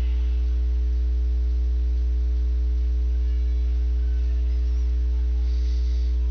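Steady low electrical hum, mains hum picked up by the recording, with fainter steady tones above it and no change in level.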